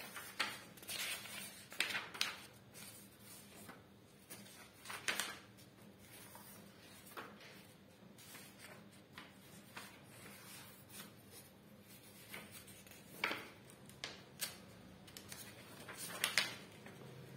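Pages of a book being turned by hand: a series of soft paper swishes and rustles, with louder ones about 2, 5, 13 and 16 seconds in.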